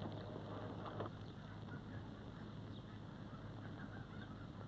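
Quiet old film soundtrack: a steady low hum and hiss, with one faint knock about a second in.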